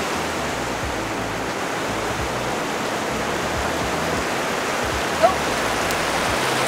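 Steady rushing noise of surf washing on a sandy beach, even and unbroken, with a single sharp click about five seconds in.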